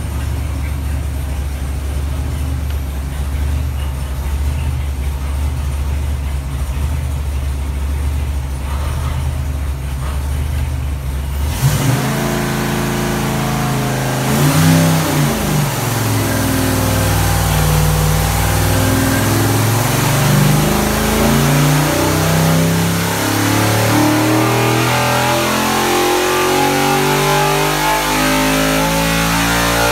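GM LS 408 stroker V8 with a Holley HiRam intake running on an engine dyno. It idles steadily, then about twelve seconds in the throttle opens and it runs a dyno pull, its pitch climbing as the revs sweep up past 6,000 rpm.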